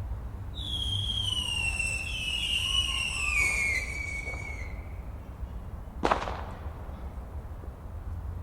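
Whistling fireworks: two overlapping whistles slide slowly down in pitch for about four seconds, then a single sharp bang about six seconds in, over a steady low rumble.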